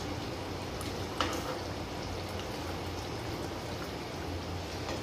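Chicken curry simmering in a pan while a steel spoon stirs it, with one light clink of the spoon about a second in.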